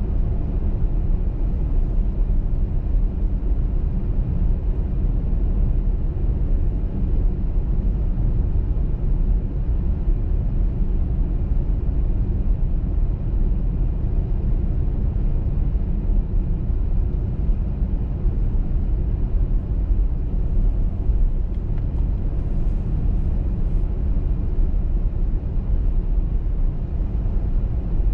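A car driving along a snowy motorway: a steady low rumble of tyres and engine that holds even throughout.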